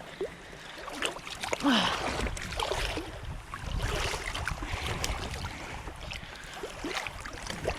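Wind rumbling on the microphone at the water's edge, with scattered knocks and rustles of handling.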